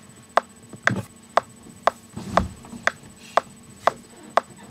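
A steady ticking beat: short, sharp clicks two a second, evenly spaced, with a couple of soft low thuds in between.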